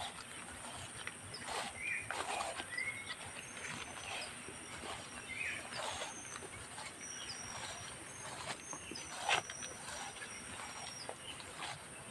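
Footsteps and leaves brushing during a walk through grassy undergrowth, irregular crackles every second or so, with short high bird chirps now and then over a faint steady high whine.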